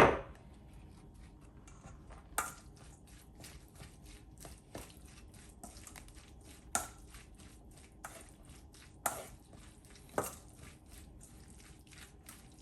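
A utensil tossing and stirring shredded lettuce dressed with mayonnaise, vinegar and oil in a bowl. It makes a rapid run of light clicks and scrapes, with a few louder knocks against the bowl.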